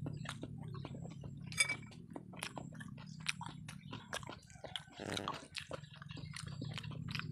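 Close-up chewing and lip-smacking of a person eating by hand: many quick, irregular mouth clicks, over a steady low hum.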